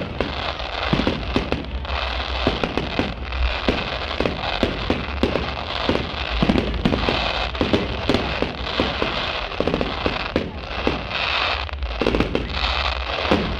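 Fireworks display: a rapid, continuous barrage of bangs and crackling, several reports a second.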